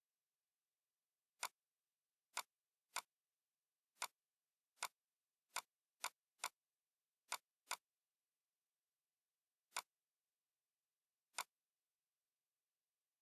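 Computer mouse button clicking: about a dozen sharp single clicks at uneven intervals, some in quick pairs, against near silence.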